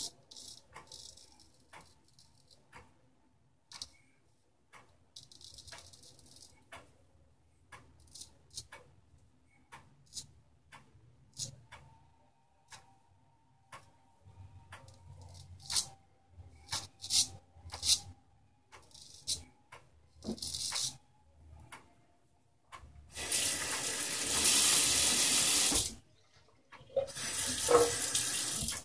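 Boker King Cutter straight razor scraping through lather in short strokes, over a clock ticking about once a second. From about 23 seconds in, a faucet runs into the sink twice for a few seconds each, the loudest sound here.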